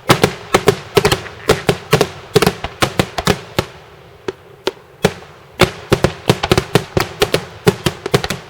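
Daytime fireworks: a rapid, irregular barrage of loud, sharp bangs, several a second, that thins out briefly about four seconds in and then picks up again.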